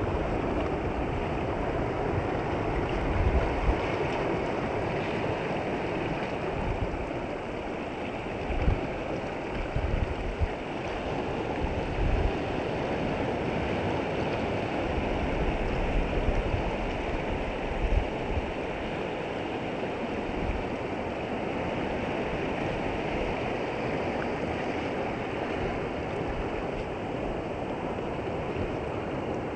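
Shallow water washing steadily over sand at the shoreline, with small surf breaking; occasional low rumbles come and go throughout.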